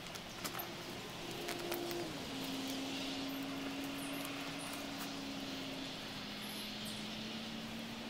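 Steady drone of a distant engine whose pitch steps down about two seconds in, with a few faint scuffs and knocks from climbing the bark of an oak tree in the first two seconds.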